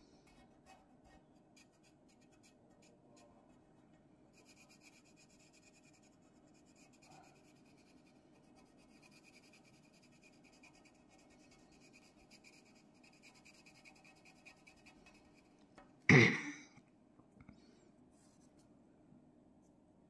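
Pencil scratching faintly on paper in short strokes while drawing. About sixteen seconds in comes one loud, short vocal burst from the person, lasting under a second.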